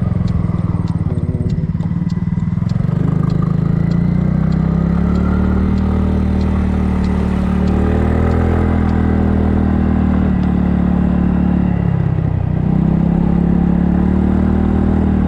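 Kymco People scooter engine running under way, its pitch rising and falling with the throttle, dropping briefly about twelve seconds in before picking up again. A faint, regular light ticking sounds over it in the first half.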